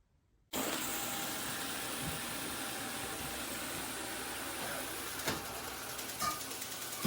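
Roomba Combo 2 Essential suction motor starting abruptly about half a second in and running as a steady, loud rushing noise, with two brief clicks near the end.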